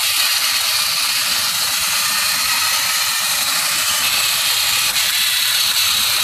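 Very old motorised TOMY Thomas the Tank toy engine running along plastic track while hauling a string of coaches and wagons: its small motor and gears give a steady, loud, high-pitched whirring buzz.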